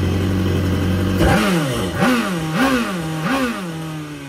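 Kawasaki STX-15F jet ski's four-cylinder four-stroke engine idling on a garden-hose water supply, then blipped up in pitch four times about two-thirds of a second apart before settling back to idle. The engine is getting water into its oil, which the owner puts down to a failing head gasket.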